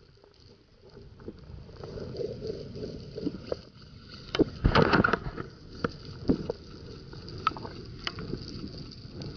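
Muffled underwater sound picked up through a camera housing mounted on a speargun while a freediver swims: a steady rush of water noise with scattered clicks and knocks, loudest in a short burst about five seconds in.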